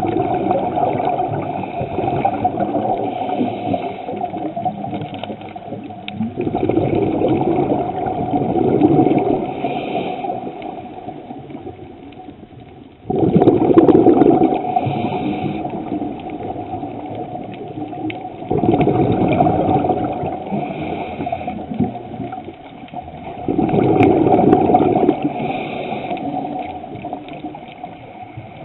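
Scuba diver breathing through a regulator underwater: a rush of exhaled bubbles swells about every five to six seconds, with quieter breathing and water noise between.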